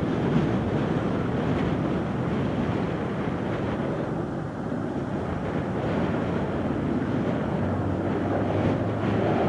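Steady drone of a B-25 Mitchell's twin Wright R-2600 radial engines as it flies past, with wind buffeting the microphone; a low engine note grows stronger near the end.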